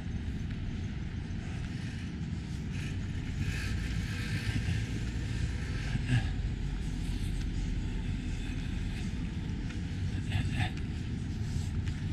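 Street traffic: a steady low rumble of cars, with the hiss of a car passing about four seconds in.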